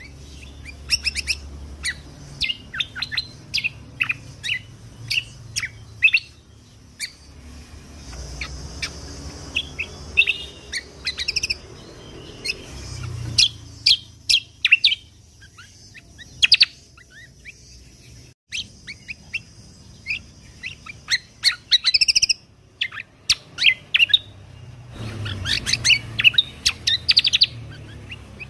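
Kecial kombok (cucak kombo) songbird singing in rapid bursts of sharp, high chirps and quick trilled runs with short pauses between phrases, over a low steady hum.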